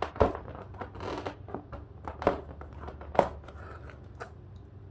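Flathead screwdriver tip scraping and prying at the edge of a glued fabric patch on vinyl, giving a few sharp scratchy clicks about a second apart.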